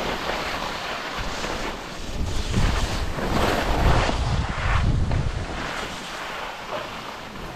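Wind buffeting the camera microphone: a rushing noise with a low rumble that swells and fades in gusts about once a second.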